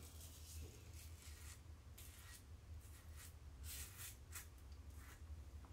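Faint, short scratchy strokes of a stainless steel double-edge safety razor cutting through lathered stubble on the cheek, several strokes in a row over a low steady room hum.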